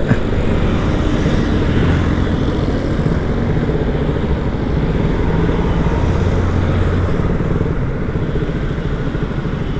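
KTM Duke motorcycle's single-cylinder engine running steadily at low speed, easing off slightly near the end as the bike slows.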